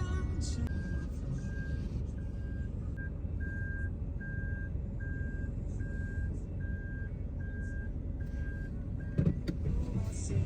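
Vehicle reversing alarm beeping steadily, about two evenly spaced beeps a second, over a low engine and road rumble; the beeping stops near the end and a couple of short knocks follow.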